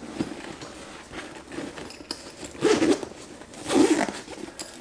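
Zipper on a fabric cat backpack carrier being pulled shut in short strokes, the two loudest in the second half.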